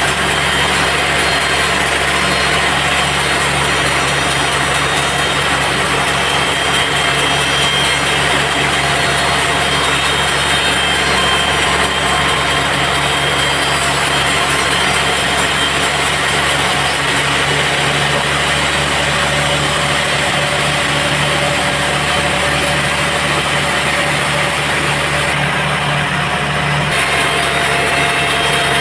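Sawmill machinery running steadily: a constant motor hum with several steady tones over an even hiss.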